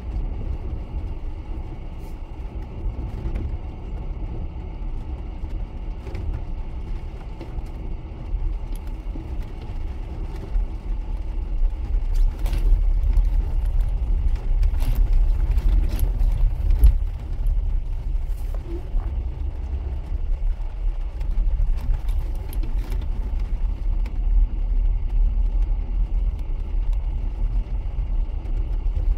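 Cabin rumble of a 4x4 driving slowly over a rough, rocky dirt road, with scattered knocks and rattles from the bumpy ride; the rumble grows louder about halfway through.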